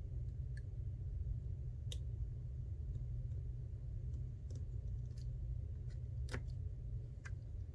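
Scattered small sharp clicks and taps, about six in all, the loudest about two seconds and about six seconds in, as tiny screws and small repair tools are handled against an opened iPhone XR during reassembly. A steady low hum runs underneath.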